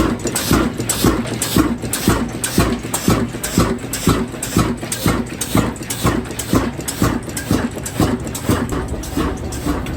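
Diesel engine running with a slow, even, thumping beat of about three strokes a second.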